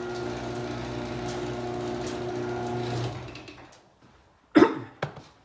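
LiftMaster garage door opener's motor running with a steady hum as it drives the door, stopping about three seconds in. A couple of short coughs follow near the end.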